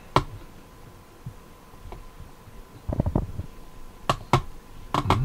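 Handling knocks and clicks from a camera mount being adjusted and raised. There is a knock just after the start, a cluster of low thumps about three seconds in, and several sharp clicks near the end.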